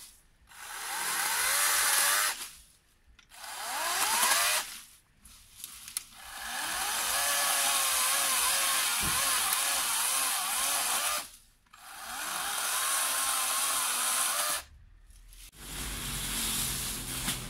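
Florabest 40-volt cordless electric chainsaw run in several bursts of a few seconds each, with short pauses between them, while cutting through leafy tree branches. The motor's whine rises as each burst starts and wavers as the chain bites into the wood. The saw stops near the end.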